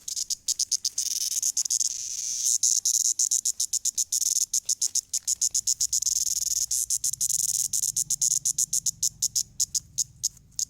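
A cicada buzzing in rapid pulses. The pulses merge into a steady buzz for a few seconds, then break up again and grow sparser near the end.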